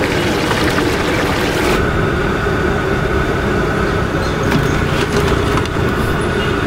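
Steady, loud outdoor traffic noise from a busy roadside.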